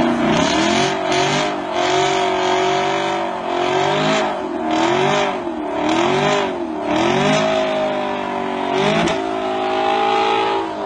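Chevrolet Camaro doing a burnout: its engine revved up and down over and over while the rear tyres spin and squeal against the pavement, throwing off smoke.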